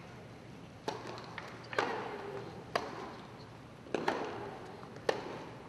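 Tennis rally: a ball struck by racket strings, five sharp hits about a second apart, starting with the serve, each echoing briefly in an indoor hall.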